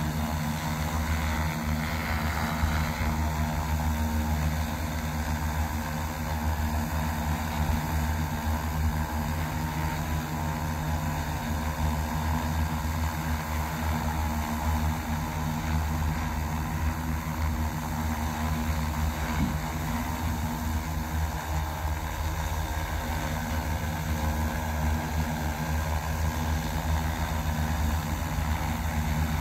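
X1400 industrial multirotor drone hovering, its propellers giving a steady, even hum that holds the same pitch throughout.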